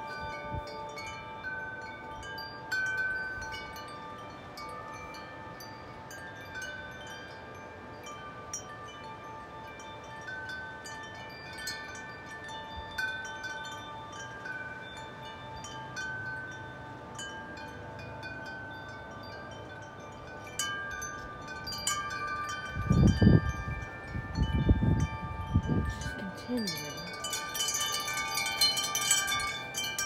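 Large metal-tube wind chime ringing in the wind: overlapping sustained tones with frequent light strikes. Wind gusts buffet the microphone about two-thirds of the way in, and the chime is struck more often near the end.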